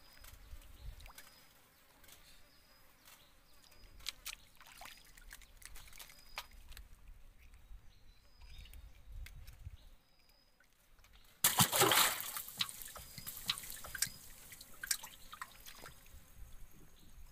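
Water trickling and lapping against a small wooden boat, with scattered light clicks and one sudden, louder splash a bit past the middle that fades over about a second.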